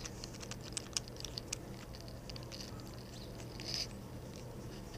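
Light, irregular metal clicks and ticks as an auger bit is handled and fitted into the chuck of a hand brace, busiest in the first second and a half with a few more near the end.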